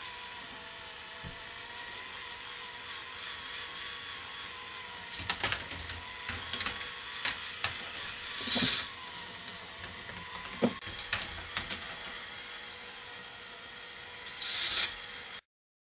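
K'nex ball machine running: the motor-driven lift whirs steadily while balls clatter and click along the plastic track in bursts from about five seconds in, with one last rattle near the end before the sound cuts off suddenly.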